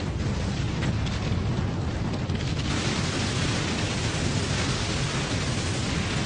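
Cartoon explosion sound effect: a long, steady rumble of noise left by a blast, growing hissier about halfway through, with no break.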